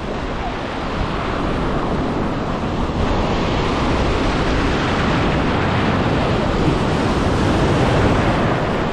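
Ocean surf breaking and washing over rocks close to the microphone, a steady loud rush of foaming water that swells near the end as a wave surges past.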